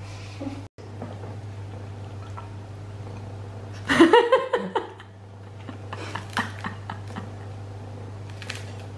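Brief wavering vocal sounds about four seconds in, with a few fainter ones later, over a steady low hum.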